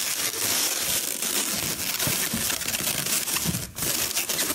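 Hands handling inflated latex balloons, rubbing and pressing them together, giving a crinkly, scratchy rustle with a brief lull near the end.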